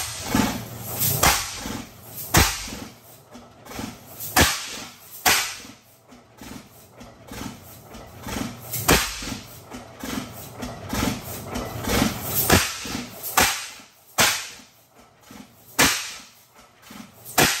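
1912 IHC 25 HP Type D Titan tractor engine firing unevenly, about a dozen sharp exhaust bangs at irregular gaps, with quieter clatter in between. It is the engine's first running in nearly 100 years.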